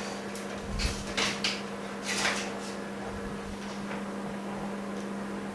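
Hands handling a phone screen glass panel: a few short scraping, rustling sounds in the first half, over a steady electrical hum.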